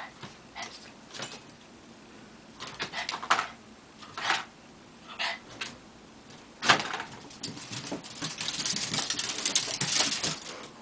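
A Bichon and a Maltese play-wrestling on a hardwood floor: short scattered scuffles and huffs in the first few seconds. From about eight seconds in comes a dense, rapid scrabbling of claws and paws on the wood as they dash about.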